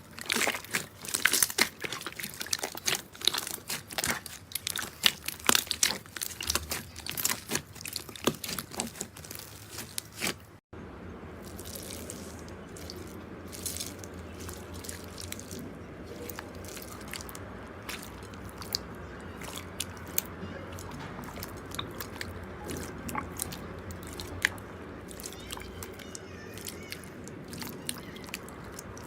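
Slime being squeezed and worked, making dense sharp clicks and pops. After a sudden cut about eleven seconds in, a second slime clip follows with a steady soft hiss and sparser small pops.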